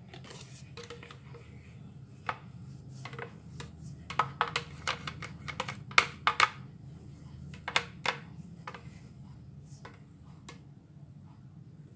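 Irregular sharp clicks and taps of a silicone spatula scraping thick batter out of a blender jug into a glass bowl, busiest in the middle, over a low steady hum.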